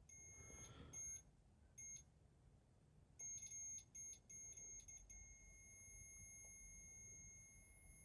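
Electronic ghost-hunting sensor device set off, sounding a faint high electronic tone: a run of short, uneven beeps that turns into one continuous tone about five seconds in.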